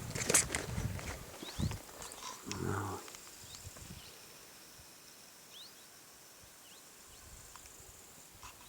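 An animal calling a few times in the first three seconds, then faint outdoor quiet with a few small high chirps.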